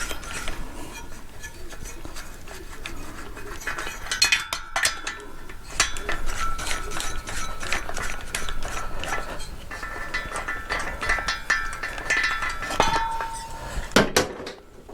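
Hand tools working on a Benelli motorcycle engine: dense, rapid clicking and clinking of metal tools and engine parts, busiest from about four seconds in.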